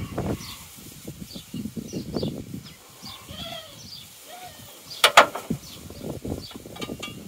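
Knocks and rustling of parts being handled in a car's engine bay as the plastic screenwash bottle is refitted, with one sharp clack about five seconds in. Small birds chirp repeatedly in the background.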